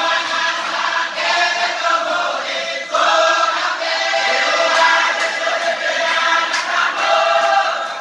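A large group of men singing a chant together, many voices at once, in phrases with short breaks about a second in and about three seconds in.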